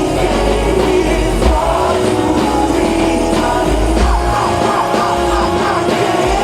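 Loud music with a heavy bass beat and a singer's voice, the singing clearer in the second half.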